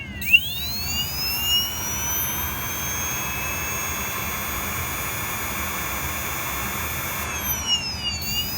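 Xnova XTS 530 brushless motor running with a high whine. It spins up from low speed just after the start, holds steady, then slows about a second before the end and speeds up again. The owner feels a tick at low RPM and suspects a bad motor bearing.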